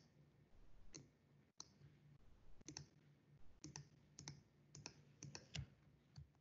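Faint computer clicks, about a dozen at irregular spacing and some in quick pairs, as presentation slides are skipped through one after another.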